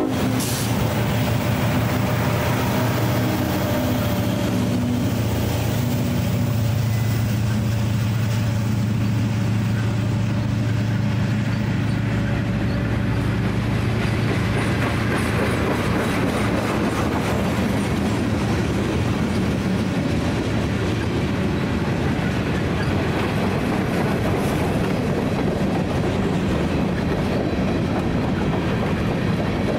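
Union Pacific diesel locomotives passing close by, their engine drone fading over the first dozen seconds or so. Then the steady rumble and clickety-clack of freight-car wheels on the rails as a mixed manifest train rolls past.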